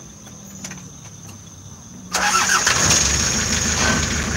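Insects trill steadily, high-pitched. About two seconds in, a nearby vehicle engine starts abruptly and keeps running, its noise and low rumble drowning the insects.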